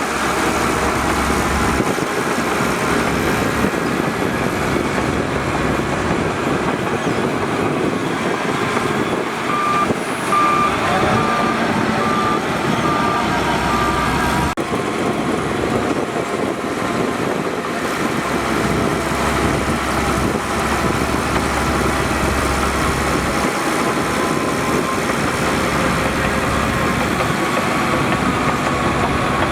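Heavy diesel earthmoving machinery, a bulldozer and dump trucks, running steadily. A reversing alarm beeps at a bit over one beep a second for several seconds near the middle.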